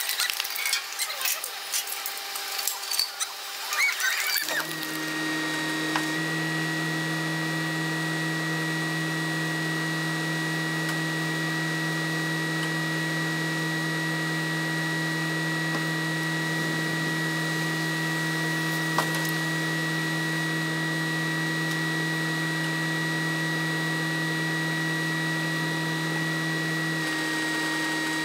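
Compact track loader running at a steady engine speed with a constant hydraulic whine as it lifts the Jeep tub. A jumble of voices and shrill squeals comes before it in the first four seconds.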